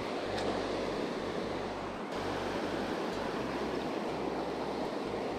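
Surf breaking and washing up the beach in a steady rush, with a low wind rumble on the microphone that comes and goes.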